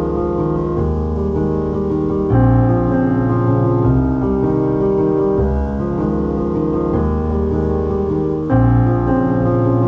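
Background piano music, gentle and steady, with a louder new chord coming in about two and a half seconds in and again near the end.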